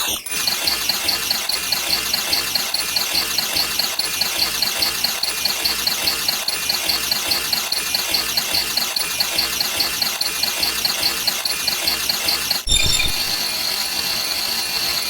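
A rapid, even mechanical sound effect of about three clicks a second with a high pulsing beep, which changes suddenly near the end to a steady high tone.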